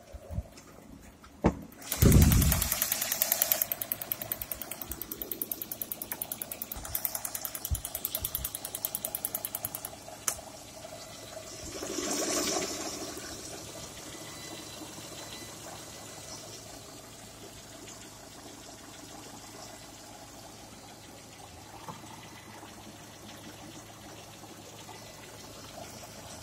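Lada Priora's VAZ-21126 1.6-litre sixteen-valve four-cylinder engine running with a regular, rhythmic knock. The engine comes in suddenly about two seconds in, the knocking beats evenly for several seconds, swells once near twelve seconds, then the engine settles to a quieter steady run.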